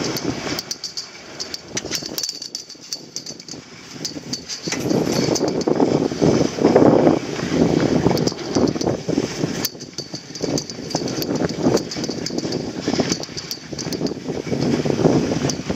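Skis sliding and scraping over packed snow while being towed uphill on a Tatrapoma poma (button) surface lift, rising and falling in long surges, with scattered small clicks and rattles.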